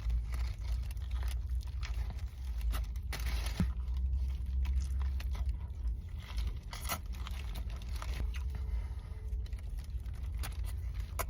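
A person biting into and chewing a chicken tender sub, with scattered crunches and crinkles from the bread and wrapper, over a steady low rumble.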